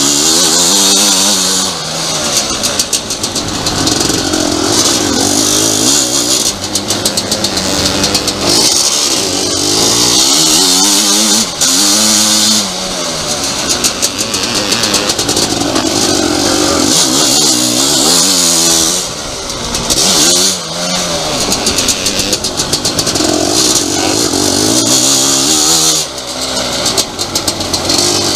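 Motocross engine heard from the onboard camera at race pace, its pitch rising and falling again and again as the throttle opens and shuts through gear changes and corners, with wind rushing over the microphone.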